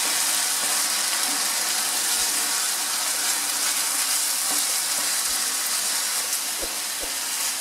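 Marinated boneless chicken cubes sizzling steadily in their released juices in a nonstick frying pan, stirred with a slotted plastic spatula, with a few faint scrapes of the spatula against the pan.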